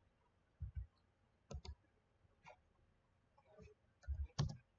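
Faint scattered clicks from a computer mouse and keyboard, several in quick pairs, with a louder cluster of clicks near the end.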